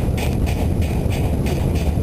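Narrow-gauge steam train running, heard from an open wagon: a steady low rumble with a regular clatter about four times a second.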